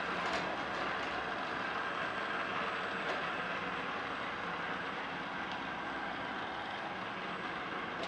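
ILIFE A6 robot vacuum running on carpet tiles: a steady whir of its suction fan and brushes that grows slightly quieter as it works further under the bed, with a couple of faint clicks.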